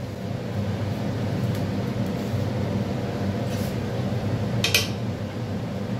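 Metal spatula clinking and scraping in a metal kadai of chicken pieces, with one sharp clink near the end, over a steady low hum.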